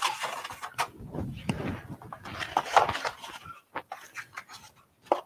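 Handling noises as a pulp egg carton is fetched and opened beside a mixing bowl: rustling and knocks, then a few separate sharp clicks near the end.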